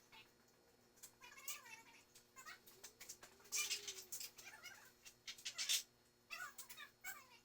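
Repeated short, high mewing animal calls with bending pitch, faint, over a low steady hum.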